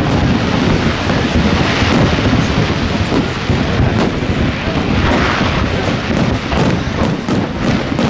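Fireworks display going off without a pause: many overlapping deep booms with sharp cracks scattered through them.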